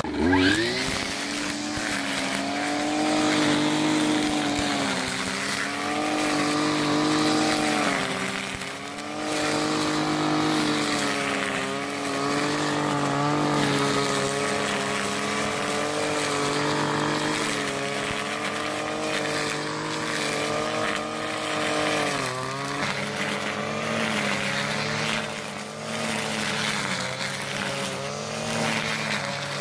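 Kawasaki TJ 35 E two-stroke brushcutter engine running at high revs while mowing weeds. Its pitch climbs sharply right at the start, then dips briefly and comes back up a few times as the throttle eases and opens.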